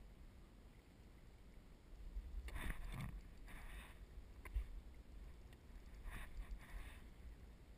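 Kayak paddle dipping into the sea in a few strokes, with short splashing sounds and a single sharp knock between them, over low wind rumble on the microphone.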